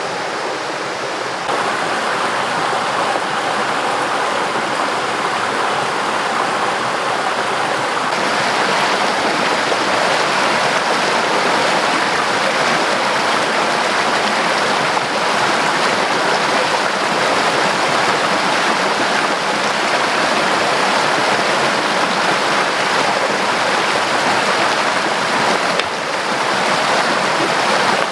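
Steady rushing of water, loud and unbroken, growing slightly louder about a second and a half in.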